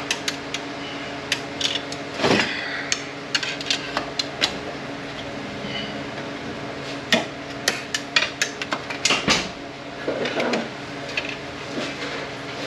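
Screwdriver and pry tools clinking, tapping and scraping against metal parts inside an automatic transmission case as a stubborn part is worked loose: irregular metallic clicks and knocks, several in quick clusters, over a steady low hum.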